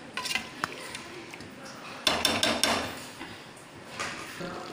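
Metal clinks and knocks against an aluminium pressure-cooker pot, with a few light clicks near the start and a quick cluster of louder strikes about two seconds in.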